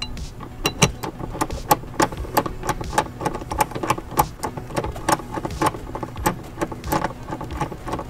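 Ratchet wrench with a Torx T50 bit clicking in quick, uneven strokes, about four or five clicks a second, as it backs out the seat-mounting bolts of a MINI Cooper.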